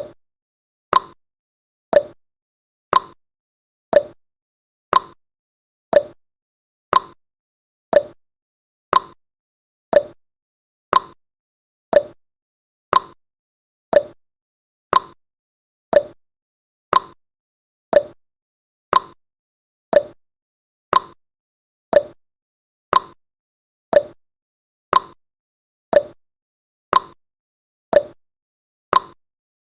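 Countdown timer's tick sound effect: one short, sharp pop-like tick every second, evenly spaced, with silence between.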